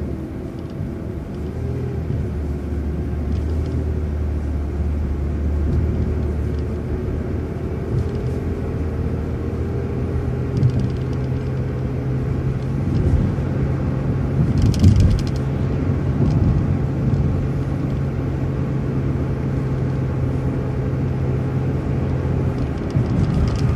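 City transit bus under way: engine and drivetrain running with a low drone that shifts pitch several times, over a steady whine. A brief burst of noise comes about fifteen seconds in.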